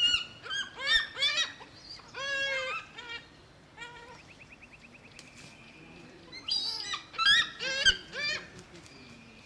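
African fish eagle calling: two bouts of short, repeated ringing notes, the second bout starting about six seconds in.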